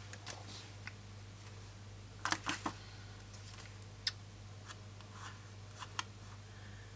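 Pen writing on planner paper and light handling of the page: faint scratches and a few small ticks, with a short cluster of clicks about two seconds in, over a steady low hum.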